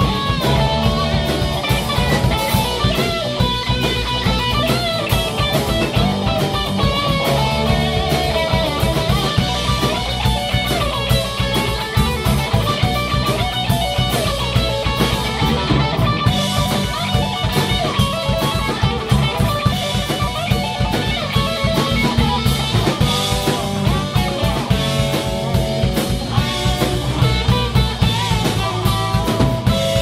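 Hard rock band playing in rehearsal: electric guitar lines over a steady drum kit and bass.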